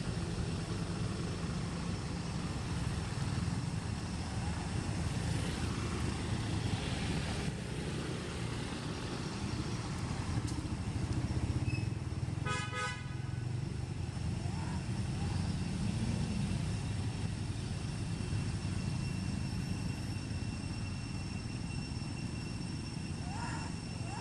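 Steady low rumble of motor traffic. A short vehicle horn toot comes about halfway through, and near the end a young macaque gives brief rising squeaks.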